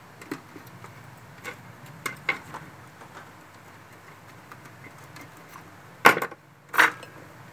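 Handling sounds of a printed circuit board on a workbench: a few light clicks and taps, then two louder short knocks about six and a half seconds in, a second or less apart.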